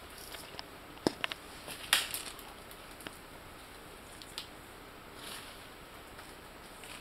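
Sharp snaps and crackles of stems and twigs breaking in dense undergrowth: a quick run of cracks about a second in, the loudest about two seconds in, then a few single snaps and a soft rustle of leaves.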